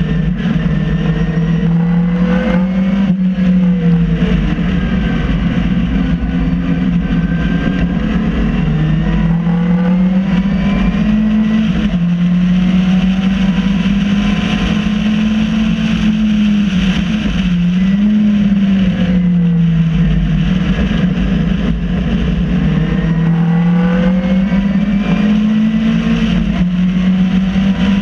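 MG Midget race car's four-cylinder engine at racing speed, heard from the cockpit, its pitch climbing slowly and dropping back several times as it is driven through corners, with a quick dip and rise a little past halfway. A steady low rumble of wind and road noise runs underneath.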